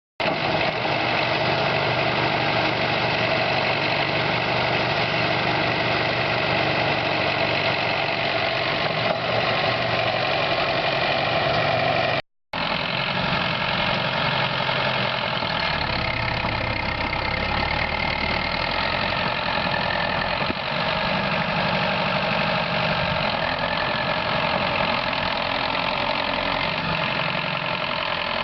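T-74 crawler tractor's diesel engine running steadily, with a brief break in the sound about twelve seconds in.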